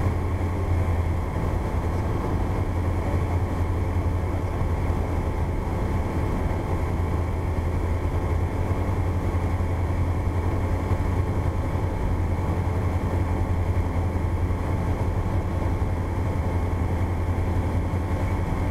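Cessna 172's piston engine and propeller running steadily in flight on approach, a constant low drone heard from inside the cabin.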